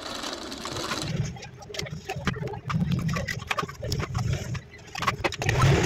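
A short hiss-like whoosh, then irregular clicks, knocks and low rumbling handling noise as hands move an opened smartphone about on the bench.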